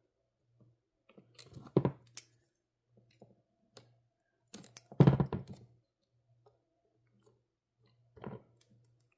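Screwdriver and small parts clicking and knocking against an opened power drill's housing while a wire is worked free of its locking terminal. Three short clusters of clicks, the loudest about five seconds in and another near the end.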